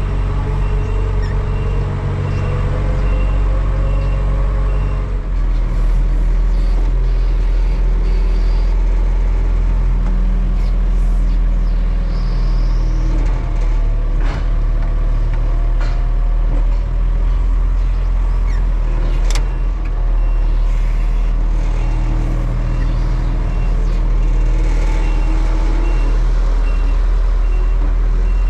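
Tractor engine running steadily through a long stretch of field work, with a faint high beep repeating evenly over it.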